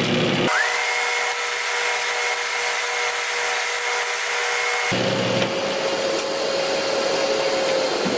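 Flatmaster drum sander running, with its sanding drum working a thin wood panel fed across it. The steady tone changes pitch partway through, and near the end it begins to fall as the sander spins down.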